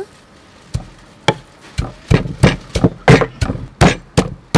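Wooden pestle pounding in a wooden mortar, crushing chili, garlic and sugar into a chili sauce paste. A few separate strikes, then a steady pounding at about three strikes a second.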